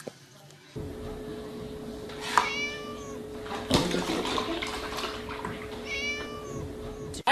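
Milk pouring steadily from a carton into a plastic bucket, starting about a second in, with a steady hum underneath. A cat meows twice, about two and a half seconds in and again near the end, and there is a single knock in between.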